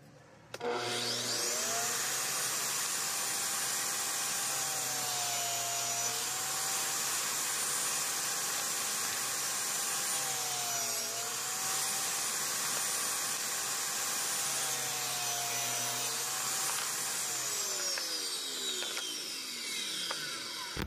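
Table saw motor spinning up, running steadily and dipping briefly in pitch three times as birch plywood drawer-box sides are fed through to cut the groove for the bottom panel. It is then switched off and winds down, the whine falling over the last few seconds.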